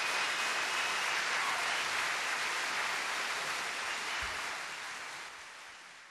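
A river in spring flood rushing through rocky rapids: a steady noise of churning white water that fades away over the last two seconds.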